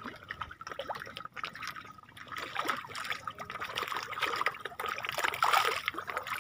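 Fish feeding at the surface of a pond, a busy patter of many small splashes that grows louder after the first couple of seconds.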